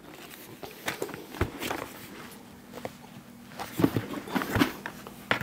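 Handling noise of a Ski-Doo Oxygen snowmobile helmet: scattered light knocks and rustles as the shell is turned over and the fabric liner pressed, over a faint steady hum.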